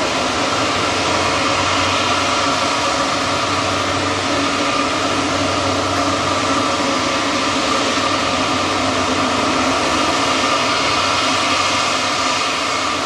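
Jet airliner engines running at close range: a steady rush of noise with several constant whining tones layered on top.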